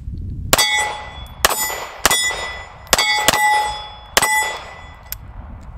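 Six shots from a Kahr CT380 .380 ACP pocket pistol in an irregular string, each followed by the clang of a hit steel plate target ringing out over most of a second.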